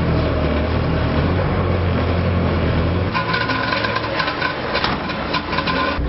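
Car engine running steadily under a foot on the pedal for about three seconds. The engine sound then stops and gives way to scattered clicks and a thin high steady tone.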